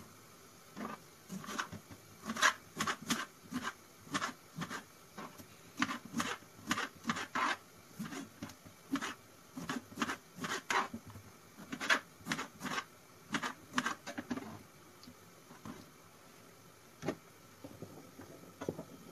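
Knife cutting tomatoes on a plastic cutting board: irregular knocks of the blade on the board, several a second, stopping about fourteen seconds in, with one more knock near the end.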